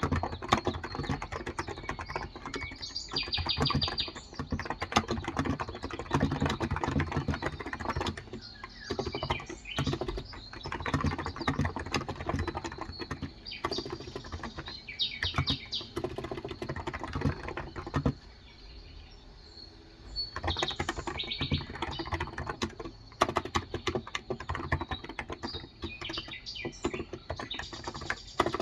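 Fast typing on a Cox Endeavour electrostatic capacitive keyboard with 35 g switches: a dense run of keystroke clicks that stops for about two seconds roughly two-thirds of the way through, then resumes. Birds chirp now and then behind the typing.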